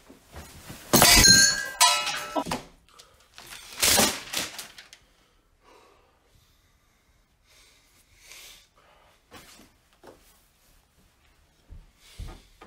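A loud crash with a metallic ringing that lingers for about a second, then a second heavy thud around four seconds in. Faint knocks follow, and low thumps near the end.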